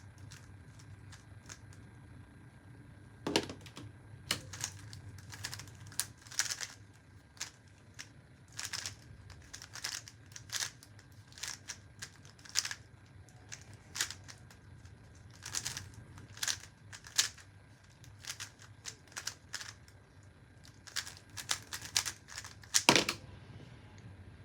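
A 3x3 speed cube being turned fast, its plastic layers clicking and rattling in quick irregular runs for about twenty seconds. It begins with a knock a few seconds in and ends with a louder knock near the end.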